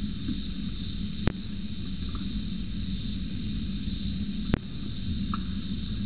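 Steady high-pitched drone of a cicada chorus, over a low rumble, broken by two sharp clicks, about a second in and past the four-second mark.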